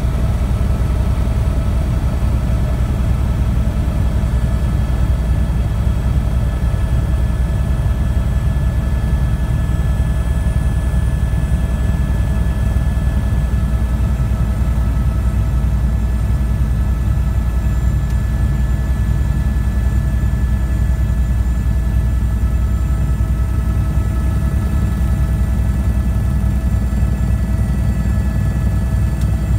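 Cabin noise of an Airbus AS350 single-engine turbine helicopter in cruise flight: a loud, steady low drone from the rotor and engine, with a few constant whining tones above it.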